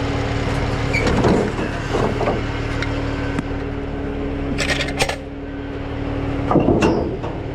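A truck engine idling steadily, with a few knocks and bright metallic clinks of recovery gear being handled, the sharpest a little under five seconds in.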